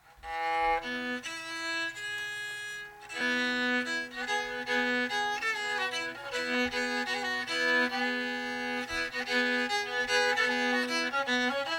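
Homemade four-string gourd fiddle, a gourd rebab rebuilt as a fiddle, bowed in old-time style in Calico cross-tuning a few steps below standard fiddle pitch, often sounding two strings together. It plays an instrumental opening with a short break about three seconds in.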